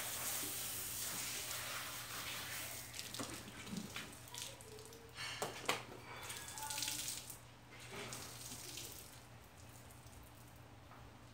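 Garden hose spraying water onto a car, a steady hissing splash that dies away about seven or eight seconds in, with a couple of sharp knocks around the middle.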